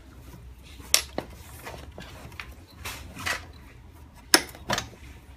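Metal parts and tools clinking and knocking as a laminating machine is taken apart by hand: about five separate sharp strikes, the loudest a little past four seconds in.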